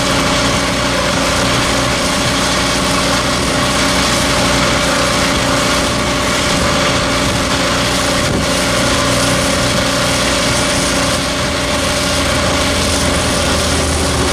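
Truck-mounted hydroseeder's engine running steadily to drive the slurry pump, with a steady hiss of mulch slurry spraying from the hose.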